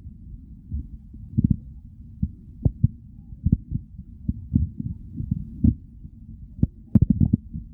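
Stomach and bowel gurgling: a low, steady rumble with short, irregular gurgles and pops, and a cluster of louder ones near the end.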